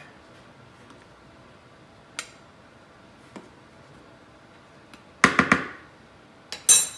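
Spoon scooping flour into a metal measuring cup: a couple of faint clicks, then a quick run of ringing metal clinks about five seconds in and another sharp clink near the end.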